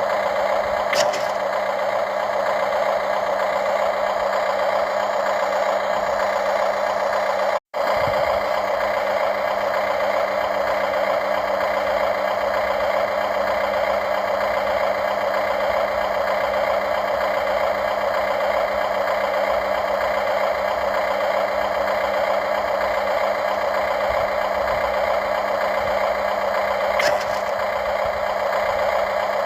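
Radio-controlled excavator's small motor and hydraulic pump running steadily, a constant mechanical whine, with a couple of faint clicks. The sound cuts out for an instant about eight seconds in.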